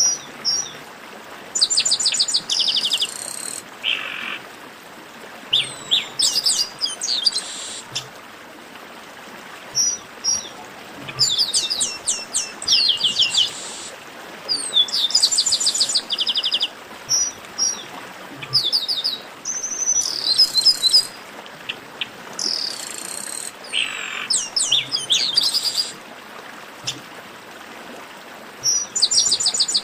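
Chestnut-capped blackbird song: bursts of rapid, high, downward-sliding notes, each phrase a second or two long and repeated every few seconds, with a few lower notes between the phrases.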